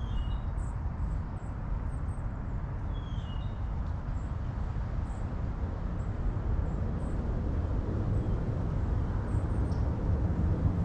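Steady outdoor background rumble, with a few faint, short high chirps scattered through it.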